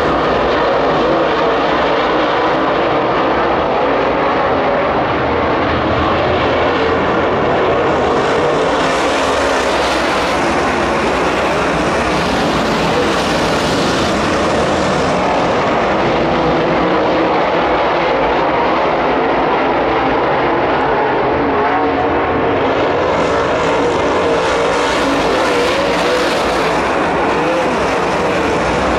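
A field of dirt late model race cars running at racing speed, their V8 engines at full throttle in a loud, steady drone. It swells and fades twice as the cars come past.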